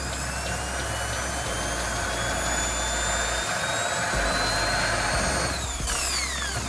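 Cordless drill spinning a small diamond grit bit against ceramic wall tile, grinding at the glaze. The motor whine climbs slowly in pitch, holds, then drops away steeply about five and a half seconds in as the drill winds down.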